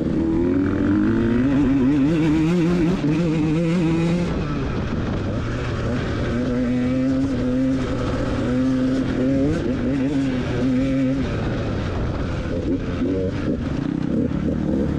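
Off-road motorcycle engine heard from on the bike while riding, its note rising and falling continuously as the throttle opens and closes.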